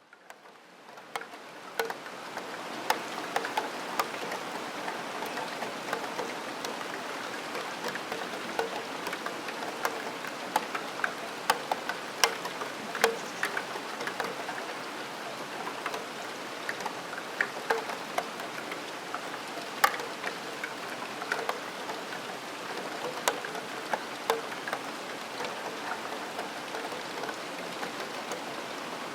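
Rain falling, with a steady hiss and irregular sharp, ringing taps of single drops hitting a steel window sill. It fades in over the first few seconds.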